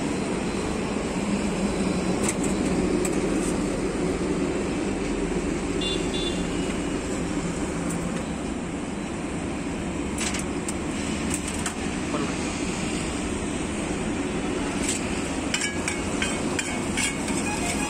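Steady din of a busy street with background chatter. Near the end, a metal spatula clicks and scrapes repeatedly on a large steel griddle.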